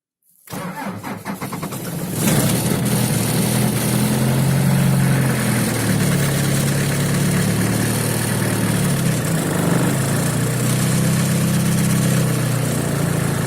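Diesel car engine cold-started at about −30 °C with a little throttle: the starter cranks it for under two seconds, then it catches and keeps running, its speed rising and falling unevenly.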